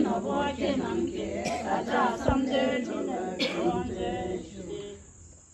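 Group of Tibetan women chanting a prayer together, unaccompanied, trailing off near the end.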